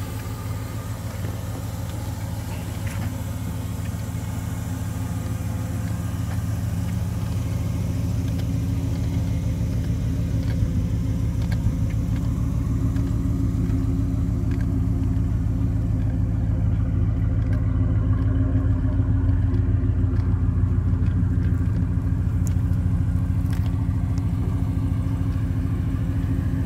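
1986 Oldsmobile Cutlass G-body's engine idling steadily, a low rumble that grows gradually louder.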